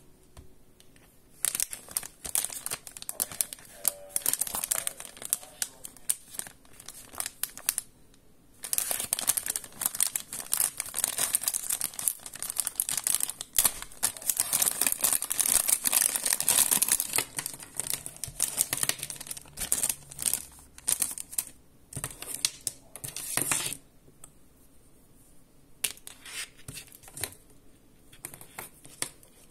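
Clear plastic packaging bag crinkling and rustling as it is opened and handled, with a short break about eight seconds in. The crinkling stops a few seconds before the end, leaving a few light clicks and taps as the earphones are handled.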